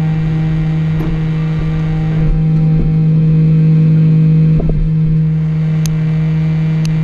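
A steady low hum with even overtones, with a few light clicks and taps of small parts being handled and two sharp ticks near the end.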